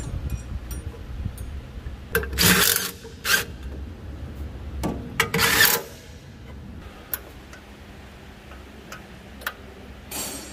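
Hand tools and metal parts clicking and knocking as a small farm carrier is being reassembled. Two short bursts of noise stand out, each under a second long, about three seconds apart.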